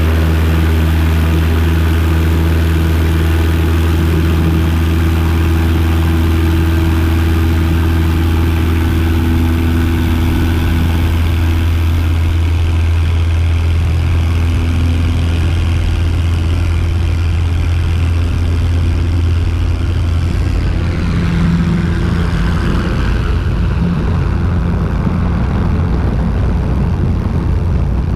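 Single-engine light aircraft's piston engine and propeller running at takeoff power through the takeoff roll and liftoff, a steady low drone with a rush of noise over it.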